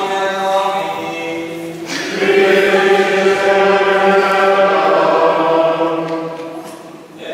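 Choir singing unaccompanied liturgical chant in long held notes. The singing swells about two seconds in and fades away near the end.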